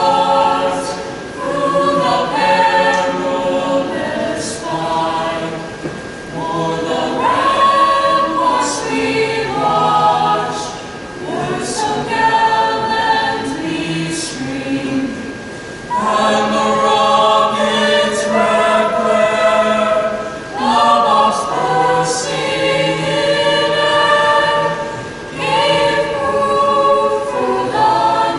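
A choir singing, many voices together in sung phrases with short breaks between them.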